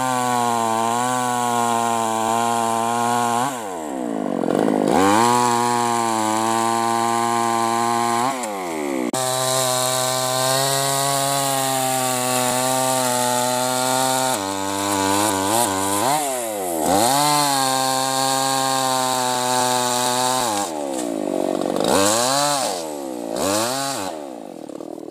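Tuned-up New West 588 two-stroke chainsaw cutting hardwood at high revs, its engine pitch dipping and recovering several times as the chain bites into the wood and eases off. It fades out near the end.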